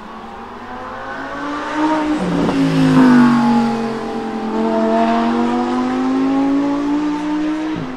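Lamborghini Huracán EVO's 5.2-litre naturally aspirated V10 accelerating hard past. The revs rise, then drop sharply in pitch a little after two seconds in. The engine is loudest about three seconds in, then the revs climb steadily again as it pulls away.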